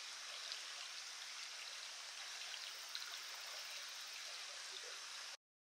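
Water running steadily in a narrow concrete roadside irrigation channel. It cuts off suddenly near the end.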